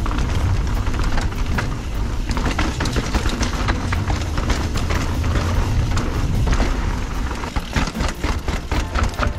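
Mountain bike rolling fast down a stone-paved path: a continuous low rumble from the tyres on the stones, with the frame and drivetrain rattling and clicking at every bump.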